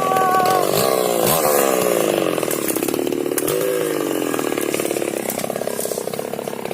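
Dolmar chainsaw running hard, its engine pitch dropping and climbing again several times as it is revved and loaded.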